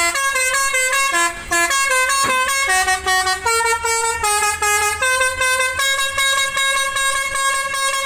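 A bus's basuri telolet horn playing a continuous melody, its notes stepping up and down every third to half second.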